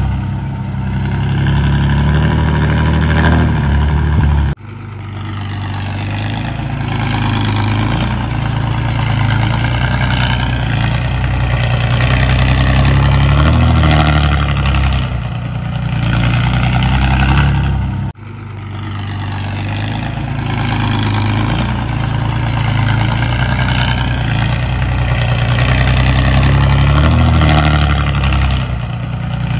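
Heavy diesel engine of earthmoving machinery running, its pitch rising and falling as it works, with two abrupt cuts in the sound, about four and a half seconds in and again around eighteen seconds.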